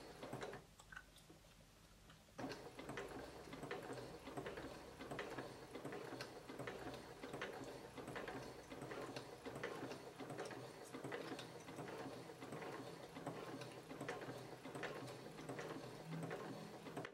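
Home electric sewing machine stitching, with a free-motion quilting foot that hops with each stitch: a steady run of even ticks over the motor's hum. It pauses briefly about a second in and starts again about two and a half seconds in.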